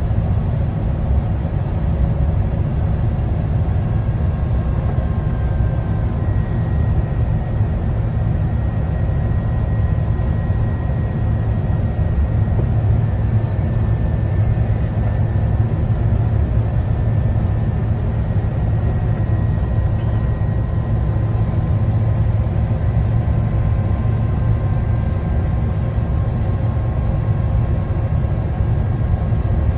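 Steady low rumble of cabin noise inside an Airbus A350 as it descends to land, with a few faint, thin whining tones held under it.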